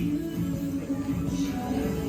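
Background music: an instrumental track with held low notes that change pitch every half second or so.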